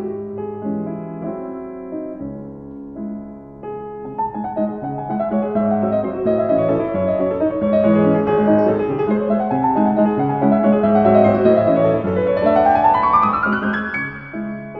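Background piano music: a melody of single notes that grows fuller and louder about four seconds in, with a quick rising run of notes near the end.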